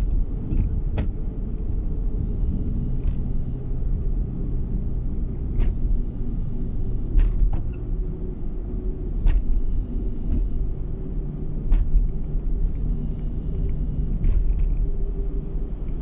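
Car road noise heard from inside the cabin while driving: a steady low rumble of engine and tyres on the road, with a few brief clicks scattered through it.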